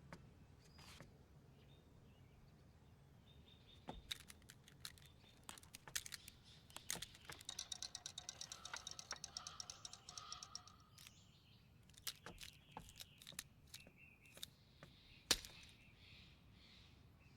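Faint cartoon film sound effects: scattered small clicks and knocks, a quick run of clicks at about five a second through the middle with faint high chirping tones, and one sharp knock near the end, the loudest sound.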